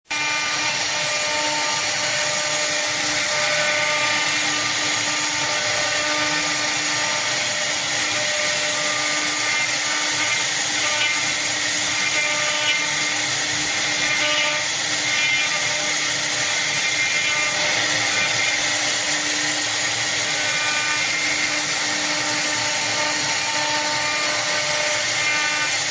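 CNC machine tool running steadily, a continuous mechanical machining noise with a faint steady whine held through it.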